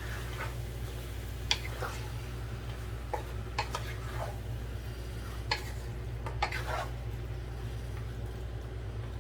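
Spoon stirring guinea bird pieces and onion in a cooking pot: irregular clinks and scrapes of the utensil against the pot over a steady low hum.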